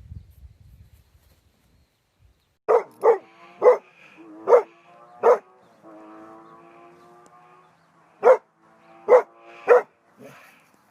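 A dog barking: five barks in quick succession a few seconds in, a pause, then three more barks.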